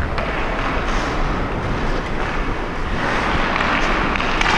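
Wind rushing over a helmet-mounted GoPro's microphone as the wearer skates, mixed with the hiss of skate blades on the ice. The rush grows louder about three seconds in.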